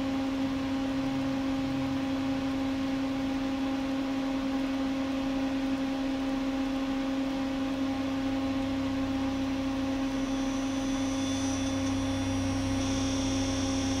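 Steady electrical hum with a constant mid-pitched tone. A faint low drone grows louder in the second half, and a faint high whine joins near the end.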